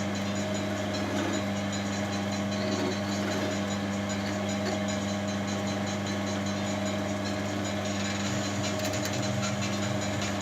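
Wood lathe running with a steady motor hum while a skew chisel cuts straight into the spinning wood, taking the ends of a turned wooden ball down.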